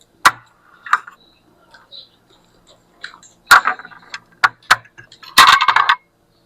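Eating utensils clinking against a bowl: a few sharp separate clicks, then a rapid clatter lasting about half a second near the end.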